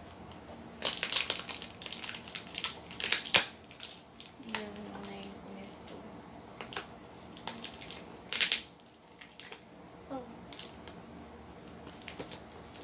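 Packaging crinkling and crumpling in the hands as a parcel is unwrapped. It comes in several short bursts, the loudest about a second in, around three seconds and just past eight seconds.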